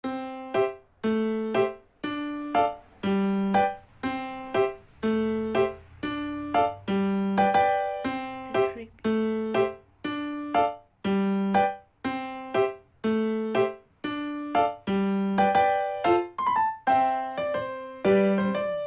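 Background music: a gentle keyboard tune of short, fading notes repeating in a steady pattern about once a second.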